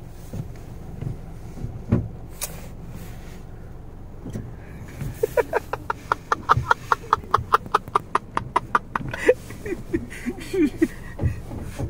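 A person laughing hard in a fast run of short, even 'ha-ha-ha' bursts, about four a second, starting near the middle, over a steady low rumble inside a car cabin.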